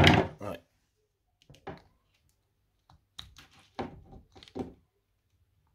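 A knock at the start, then scattered light clicks and taps of a screwdriver and plastic bead chain being worked against a plastic roller-blind clutch mechanism, while the chain is fed back through it.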